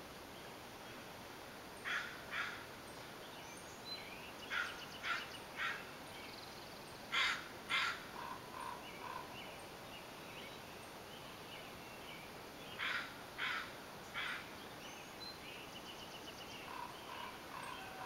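A crow cawing: harsh calls in groups of two or three, repeated four times. Quieter short songbird notes and a brief trill come between the caw groups.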